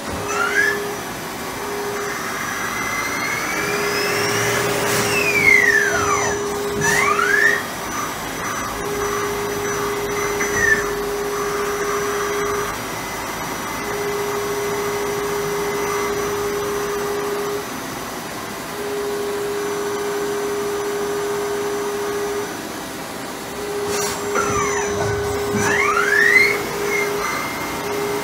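Takisawa EX-110 CNC lathe running a brass-turning cycle: the spindle drive whines up and down in pitch as the spindle changes speed, twice, with a steady machine hum that switches on and off in stretches of a second or two between.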